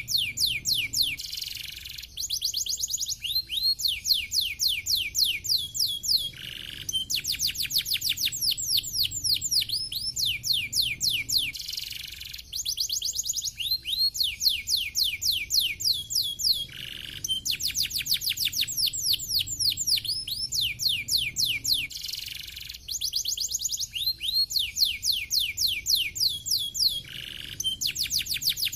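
Domestic canary singing continuously: long, fast trills of rapid sweeping notes, broken into phrases by brief pauses every five seconds or so, with a few short lower notes between the trills.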